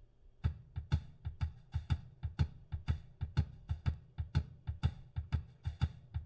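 Playback of recorded kick drum and snare drum, built from separate mic'd passes lined up together, starting about half a second in with a quick, steady run of hits, about four or five a second.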